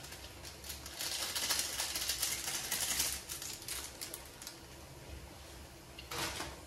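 Rapid clicking and rattling of metal kitchen utensils for about two seconds, then a brief scrape near the end.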